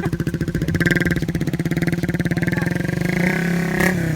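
Suzuki Raider 150 Fi's single-cylinder four-stroke engine running steadily through a Vmax conical aftermarket muffler, an even, rapid exhaust putter, with a sharp click near the end.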